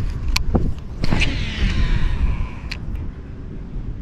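Baitcasting reel on a cast: a click about a second in as the spool is released, then the spool's whine falling in pitch for over a second as line pays out, and another click near the end as the reel is engaged. A steady low rumble of wind runs underneath.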